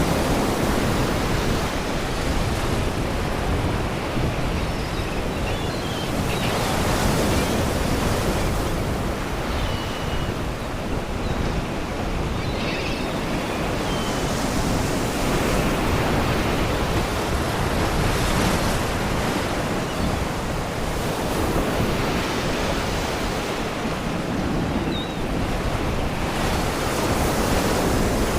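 Sea waves washing against rocks, a steady surf noise that swells and eases every few seconds. Faint, short seagull cries come through now and then.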